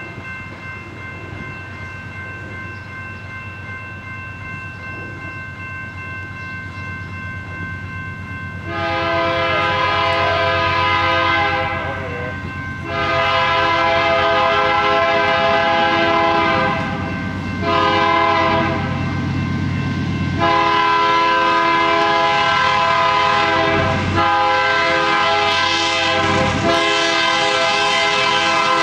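BNSF diesel locomotive's multi-chime air horn blowing the grade-crossing signal: two long blasts, a short one, then a long one held on, all over the low rumble of the approaching train. Before the first blast, about a third of the way in, only a faint steady tone and the rumble are heard.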